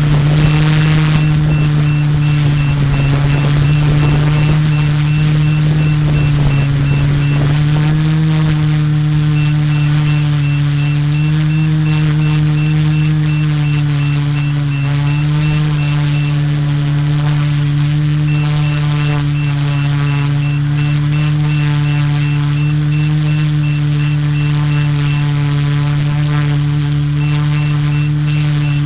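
GF 680 drone's LD Power MT4010 475 KV brushless motors and 13 x 5.5 in carbon propellers humming steadily as it hovers a few feet off the ground, heard from the camera mounted on it. The pitch wavers slightly, with a faint high whine above.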